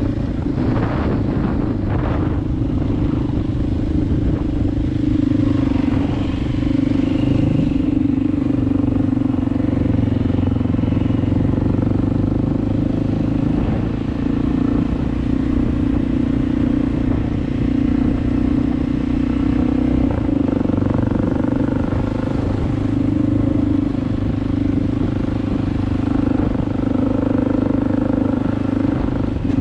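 Kawasaki KLX dirt bike's single-cylinder four-stroke engine running steadily while under way.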